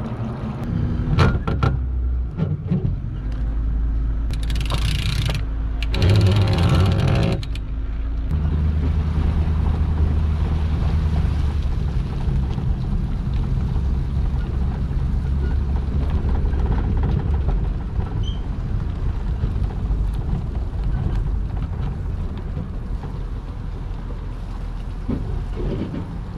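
Pickup truck engine running under load as it hauls a boat on its trailer up the launch ramp, with a steady low hum. Two loud, hissing rushes come about four and six seconds in.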